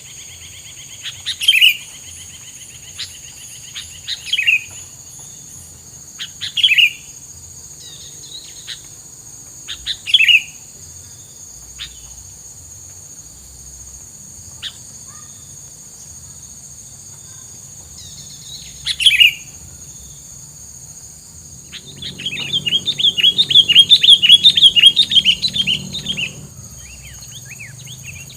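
Tilang songbird calling: short, sharp chirps every few seconds, then a loud, fast run of chirps near the end. A steady high insect drone sits underneath.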